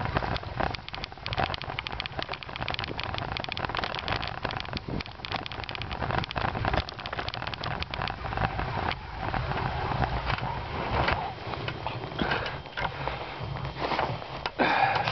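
Paws of two running dogs pattering on packed snow and the tyres of a dog-pulled road bicycle crunching over it, a dense irregular crackle of many small steps and grains.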